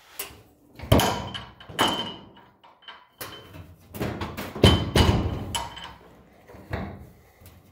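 Several sharp knocks and thuds on a car's sheet-steel hood around a recessed hood pin cup, some with a brief metallic ring, as it is handled by hand.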